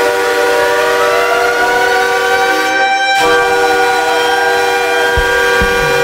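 Ice hockey arena goal horn sounding a steady chord of several tones in two long blasts, with a brief break about three seconds in. Low, regular thumps begin near the end.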